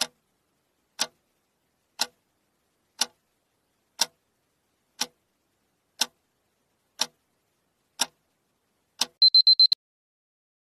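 Countdown timer sound effect: a clock ticking once a second, ten ticks, then a quick run of about five high-pitched beeps signalling that the time is up.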